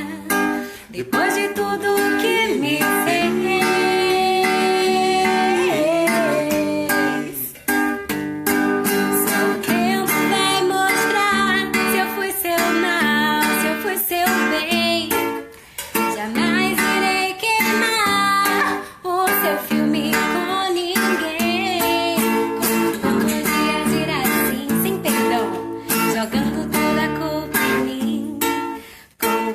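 Acoustic guitar played live, with a woman singing over it.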